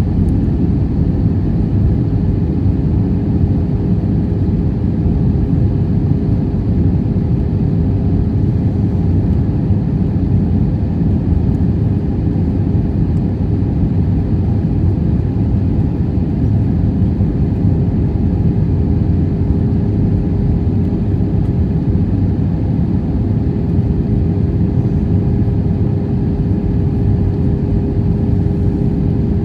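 Cabin noise inside an Airbus A320 on approach, heard from a window seat over the wing: a steady low roar of airflow and its IAE V2527-A5 turbofan engines, with a constant hum running through it.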